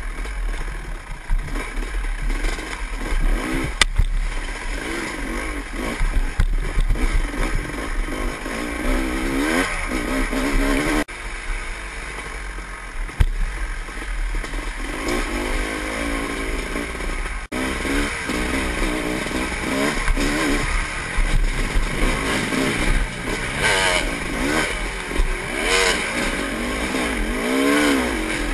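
Dirt bike engine revving up and down over and over while riding a rough trail, with rattling from the bike and wind rumble on the helmet-camera microphone.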